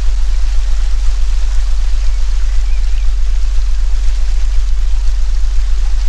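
A loud, steady low sine-like drone, the synthetic 'healing frequency' tone, under a forest ambience of an even watery hiss with a few faint short chirps.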